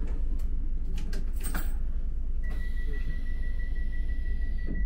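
Docklands Light Railway train standing at the platform: a steady low hum, a few sharp clicks as buttons and switches on the train captain's console are pressed, then a steady high electronic tone that starts about two and a half seconds in and holds.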